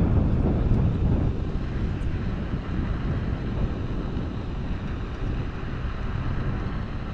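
Wind rushing over an action camera's microphone as it rides along on an electric unicycle. It is a deep, steady rush of noise with no engine tone, easing off slightly toward the end.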